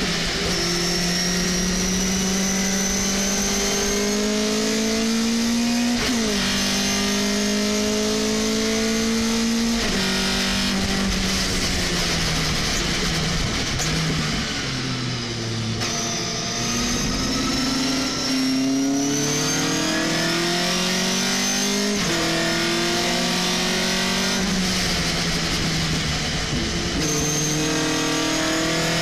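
Race pickup truck's engine heard from inside the cockpit under hard acceleration, pitch climbing through the gears with quick upshifts about six, ten and twenty-two seconds in, and a high whine rising along with it. Around twelve to fifteen seconds the revs fall away on the brakes and downshifts before climbing again.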